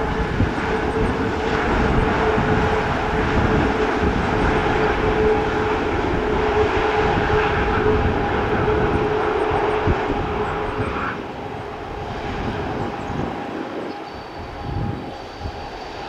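Boeing 787-9 Dreamliner's Rolls-Royce Trent 1000 engines running loudly as the airliner rolls out along the runway just after landing. The roar eases about eleven seconds in as the jet slows.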